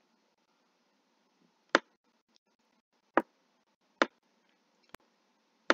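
Four sharp computer mouse clicks, spaced unevenly a second or so apart, with a fainter tick between the last two. It is quiet in between.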